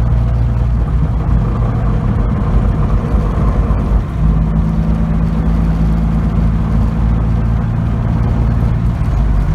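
1992 Nissan 240SX four-cylinder engine running, with the rattling and scraping of a bad clutch. The note changes about four seconds in, where a new pair of steady tones comes in.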